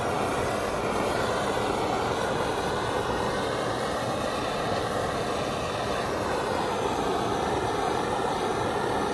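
Butane torch flame blowing steadily against a wooden rifle stock, charring the wood.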